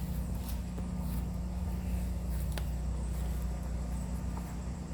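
A steady low mechanical hum, like a motor running, with a few faint clicks over it.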